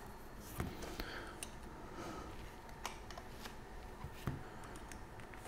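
Faint handling of a hard plastic CPU carrying case and the processor's plastic carrier: a scattered handful of light plastic clicks and taps as the CPU is lifted out of the case.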